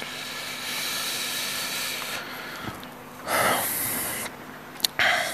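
A person breathing out heavily close to a microphone, two long hissing exhales, the second shorter and louder.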